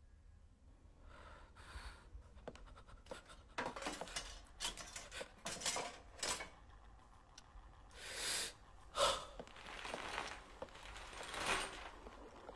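A woman's heavy, irregular breaths and gasps, a string of ragged bursts that grow louder about four seconds in and carry on to near the end.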